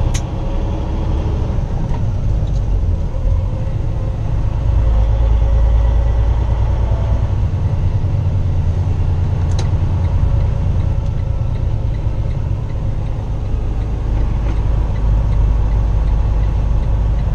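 Semi truck's diesel engine and road noise heard from inside the cab as it rolls slowly: a steady low rumble that swells a little around five seconds in and again near the end, with a couple of light clicks.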